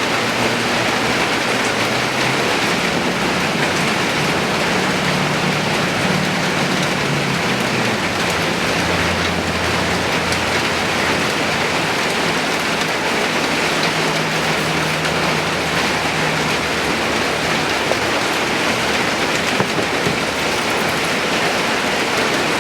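Steady rain falling, an even hiss of many drops. Underneath runs a low droning hum that changes pitch a few times and fades out near the end, like a distant engine or passing train.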